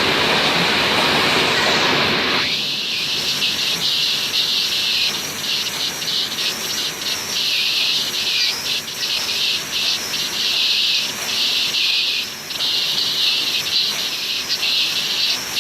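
Reinforcing cage welding machine running: a steady broad noise that narrows to a high hiss about two and a half seconds in, broken by short, irregular gaps.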